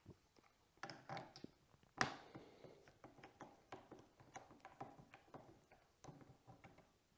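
Faint clicks and taps of hand tools and metal fork parts being handled, with one sharper knock about two seconds in, then a run of small irregular ticks.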